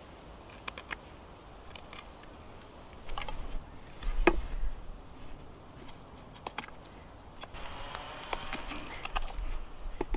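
Knife carving a long wooden pole: intermittent scraping strokes of the blade on wood with scattered small clicks and knocks, the sharpest knock about four seconds in.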